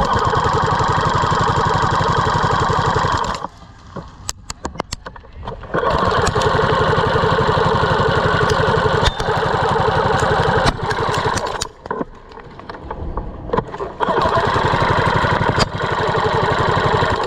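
Electric airsoft minigun (Classic Army M134-A2) firing three long sustained bursts, its motor-driven mechanism chattering rapidly as it pumps out BBs, with sharp clicks in the short pauses between bursts.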